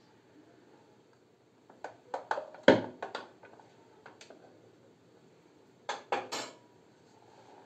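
A spoon clinking and scraping inside a Sinbo electric Turkish coffee pot while coffee is stirred: a cluster of sharp clinks about two seconds in, the loudest near three seconds, a single clink a second later, then three quick knocks near six seconds as the pot is handled.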